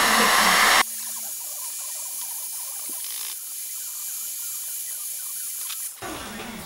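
Kawasaki heat gun blowing hot air onto a small patch of wet concrete slurry to dry it. Its steady rush cuts off abruptly about a second in, leaving a much fainter, thin hiss of airflow.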